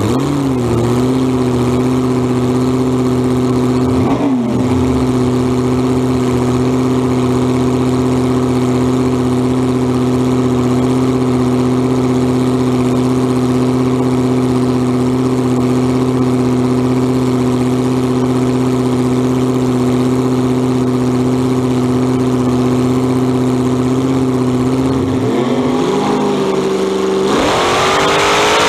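Supercharged alcohol-burning big-block Chevy V8 of a front-engine dragster idling steadily, with a quick throttle blip about four seconds in. Near the end the revs waver, then the engine goes to full throttle at launch, its pitch climbing sharply.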